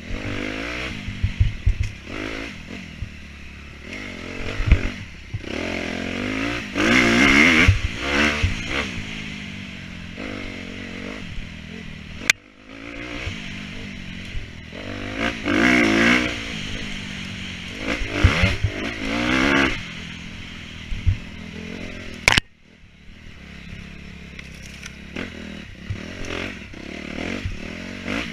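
Dirt bike engine revving up and down over and over as it is ridden hard around an enduro course, with knocks and clatter from the bike. Two sharp cracks about ten seconds apart, each followed by a brief drop in the engine sound.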